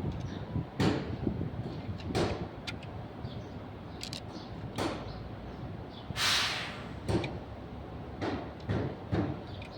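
Irregular knocks and clanks of workshop work on a vehicle, about seven sharp strokes, with a longer rasping noise about six seconds in.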